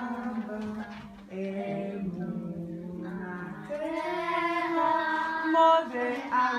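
Children singing a song, with long held notes; the singing gets louder about two-thirds of the way through.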